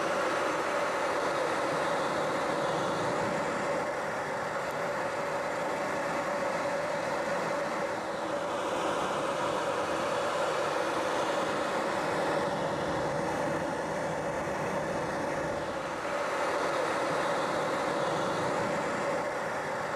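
Steady drone of a helicopter's engine and rotors heard from aboard, with a constant hum that does not change.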